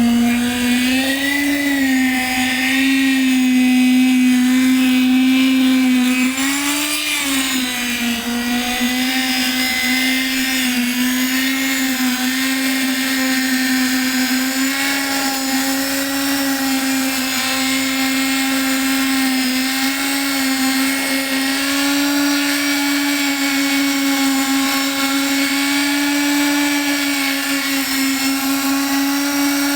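A vibrating machine's motor running continuously at a steady high hum, its pitch sagging and wobbling briefly about a second in and again about seven seconds in, as if it were loaded, then holding steady.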